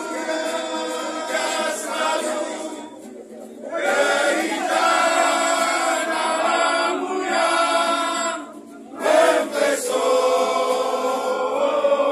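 A crowd singing together in chorus, holding long notes in phrases, with brief breaks about three seconds in and again near nine seconds.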